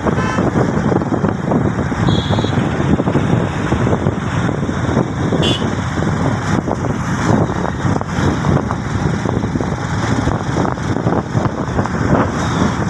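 Steady rush of wind and road noise from a moving vehicle, with the engines of nearby motorcycles and cars running alongside in light traffic.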